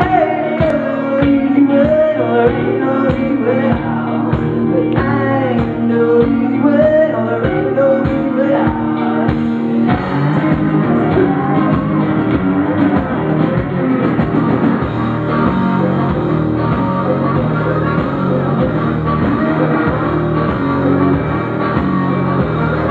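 Live rock music: an acoustic guitar strummed over a steady beat, with singing. About ten seconds in, the sound fills out as the rest of the band comes in.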